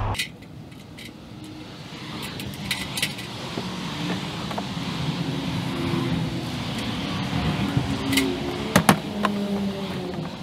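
Outdoor background with a low engine hum that grows gradually louder, and scattered sharp clicks and knocks; the loudest are a few close together about nine seconds in.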